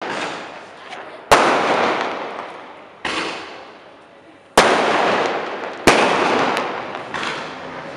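Fireworks going off: five sudden bangs, the sharpest about a second in, past four and a half seconds and near six seconds, each trailing off in a long fading echo, with a few smaller pops between.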